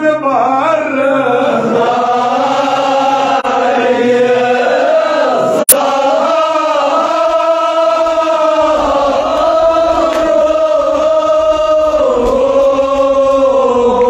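A male reciter chanting a Kashmiri marsiya (Muharram elegy) in slow, long-held phrases. A sharp click comes about six seconds in.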